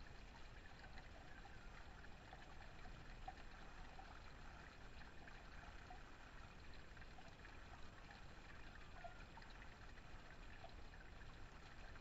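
Faint, steady trickle and splash of water running off a small garden waterfall spout.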